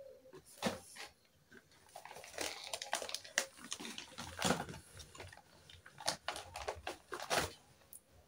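Small plastic toy cookware handled and set down on a hard stone surface: a loose series of light clicks, taps and clatters.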